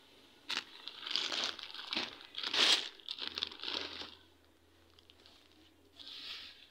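Plastic packaging of bedsheet sets crinkling and rustling as the packs are handled, in irregular bursts with a sharp click about half a second in, a quieter stretch after about four seconds, and one more rustle near the end.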